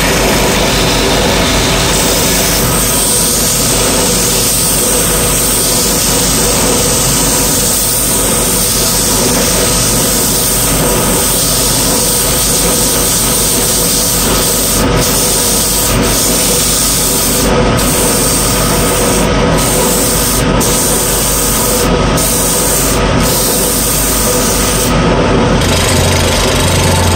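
Wood lathe running with a wooden speaker horn spinning on it, being sanded by hand on the inside: a steady rubbing over the motor's hum. Near the end a turning chisel cuts the outside of the horn.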